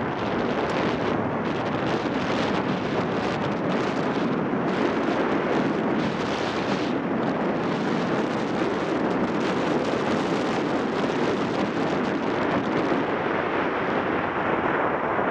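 Steady rush of riding wind on the microphone of a camera mounted on a moving motorcycle. A Yamaha XTZ 750 Super Ténéré's parallel-twin engine runs low beneath the wind.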